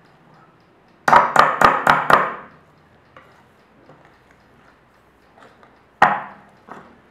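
Wire whisk beating thick cake batter in a glass bowl, its wires ticking against the glass. About a second in come five sharp knocks at about four a second, and another single loud knock near the end.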